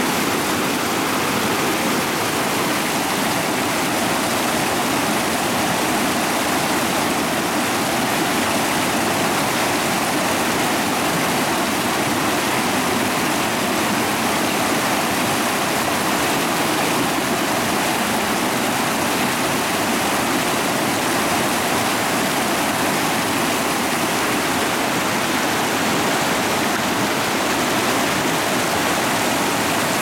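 Whitewater of a rocky mountain stream rushing and splashing over boulders, a steady, loud, unbroken rush of water.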